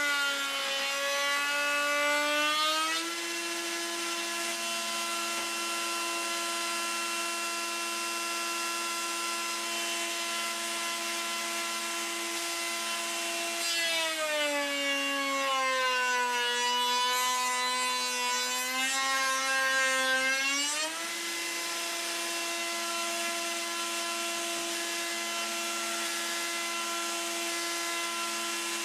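Table-mounted router running with a steady whine, its pitch dropping and then climbing back twice, for the first few seconds and again for about seven seconds midway, as the bit loads up cutting the raised-panel profile along a door panel. Between cuts it spins free at a steady, higher pitch.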